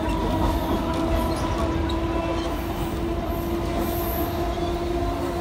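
Indian Railways passenger coaches rolling past: a steady low rumble of the train on the track with a steady whine held over it.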